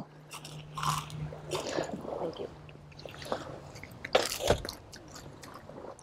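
Someone chewing a mouthful of parched sweet corn, with irregular faint crunches and the loudest crunch about four seconds in.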